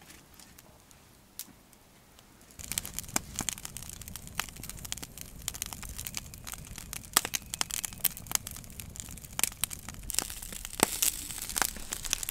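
Oysters and garlic sizzling in oil in a pan over a campfire: a steady hiss full of sharp pops and crackles, starting about two and a half seconds in after a quieter start.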